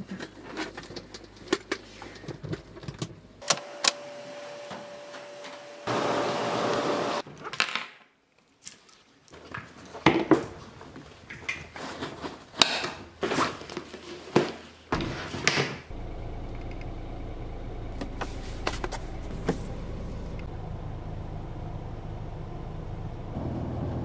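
Handling noises, a string of clicks, knocks and rustles as a fabric bag is packed and zipped, with a short hiss about six seconds in. From about sixteen seconds on, a steady low drone inside a Kia Ray's cabin as it is driven.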